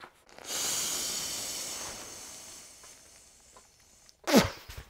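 Air rushing through the valve of an inflatable camping pillow: a long hiss that starts about half a second in and fades over a couple of seconds. Near the end comes a short, louder mouth sound at the valve that falls in pitch.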